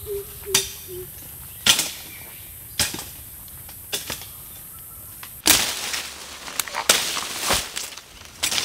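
Footsteps through forest undergrowth and leaf litter: sharp snaps of twigs about once a second at first, then from about five seconds in louder, close rustling and crackling of leaves and branches as someone pushes through the vegetation.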